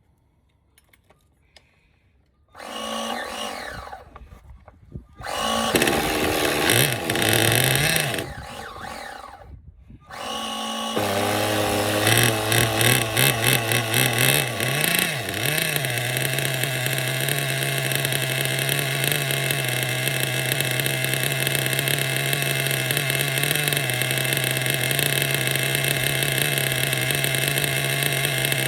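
Small nitro glow engine of an RC buggy being started on a bump starter box. Two bursts of cranking and brief firing are followed by the engine catching about ten seconds in. A few quick throttle blips follow, then it settles into a steady idle.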